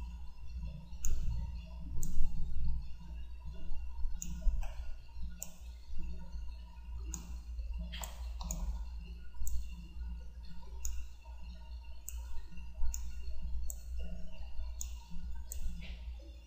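Computer mouse clicking at irregular intervals, about once a second, over a steady low hum.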